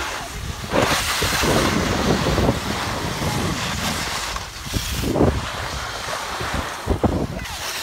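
Wind rushing over the microphone while moving down a snowy slope, with surges of skis or a snowboard scraping on snow about a second in, around five seconds in and near the end.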